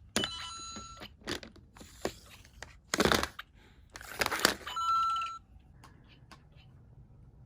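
Lego Super Mario interactive figure playing electronic beeping sound effects, a chord of steady tones in the first second and again about five seconds in. Between them come plastic clicks and two loud noisy bursts.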